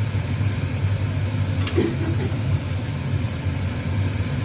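A steady low machine hum runs throughout, with one sharp click a little under two seconds in.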